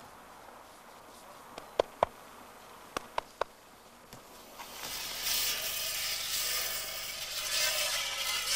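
Five short, sharp clinks of hard objects knocking together, then, from about five seconds in, a steady scraping, rubbing noise.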